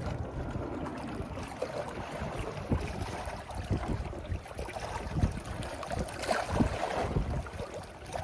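Wind buffeting the microphone in irregular low thumps, over a steady wash of water.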